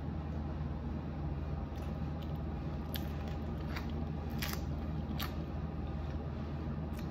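Eating sounds: biting into and chewing a broth-dipped birria taco, with several short sharp crunches and mouth clicks, the loudest about halfway through. A steady low hum runs underneath.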